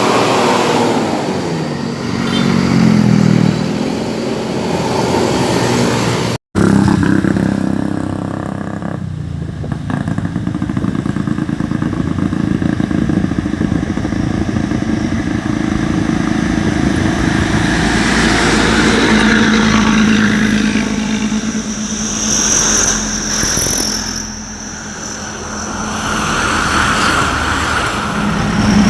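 Luragung Jaya bus's diesel engine running through a 'ngorok' (snoring) exhaust, its pitch rising and falling with the revs in the first few seconds, then running more steadily. The sound cuts out for a moment about six seconds in.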